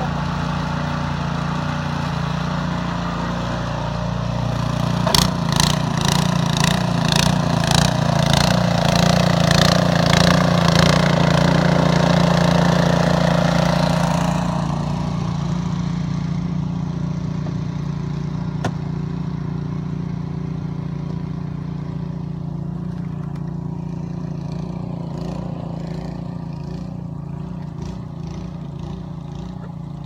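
Snowblower engine running steadily. From about five seconds in to about fourteen it grows louder, with a rhythmic ticking about twice a second, then settles back to a steady run.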